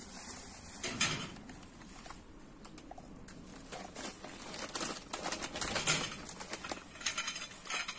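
Crinkling and rustling of a large plastic bag being handled and folded, with scattered crackles and light knocks; a sharp crackle about a second in, busier from about halfway on.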